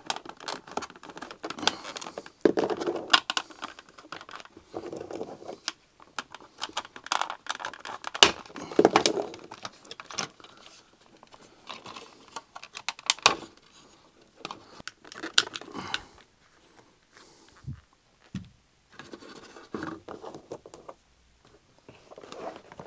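Hard plastic trim of a Mercedes door card being pried apart with a plastic trim tool: retaining clips snapping loose among scraping and rattling of the panels, in a run of sharp clicks with scraping and rustling between them.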